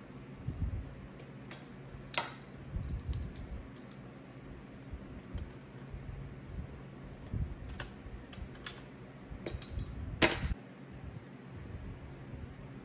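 Light clicks and small metal taps as clecos are worked with cleco pliers and a hand rivet gun is handled on the license-plate sleeve. There are two sharper snaps, about two seconds in and about ten seconds in, the second the loudest.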